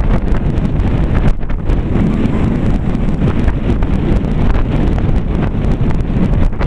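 Wind buffeting the camera's microphone: a loud, gusty rumble with no other sound standing out.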